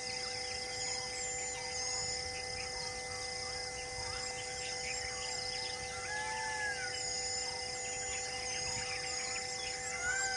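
Birds calling in a forest: many short, repeated high chirps and a clear whistled call about six seconds in, over a steady hum.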